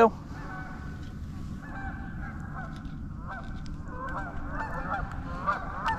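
A flock of geese honking, many calls overlapping, growing busier and louder toward the end.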